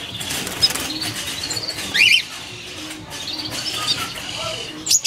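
A bird chirping, with one loud short chirp about two seconds in, over a steady rustle and a couple of sharp clicks.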